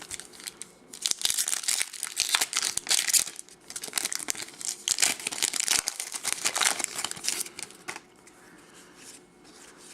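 Foil wrapper of a Topps Chrome baseball card pack crinkling as it is torn open and handled, in a run of irregular crackles that die down about eight seconds in.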